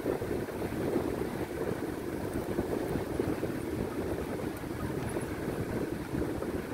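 Vehicle driving along a rutted sandy dirt track: a steady, rough rumble of tyres and engine, with wind buffeting the microphone held outside the window.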